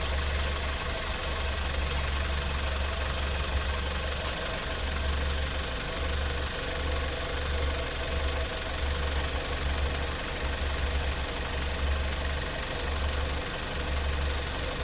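Car engine idling steadily, with a low hum that drops in and out unevenly and a steady high whine above it.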